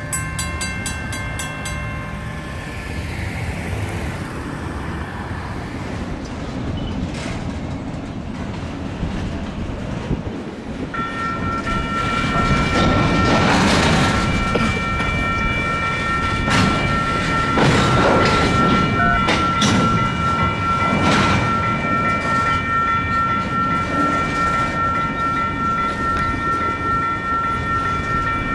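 A train passing a grade crossing, its rumble loudest in the middle with several surges. The crossing's ringing bell stops about two seconds in. From about eleven seconds a steady high-pitched tone holds to the end.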